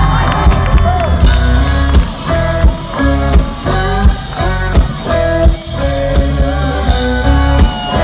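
Live country-rock band playing loud: kick drum and bass on a steady beat of about one and a half a second, with guitar lines on top, coming in all at once at the start.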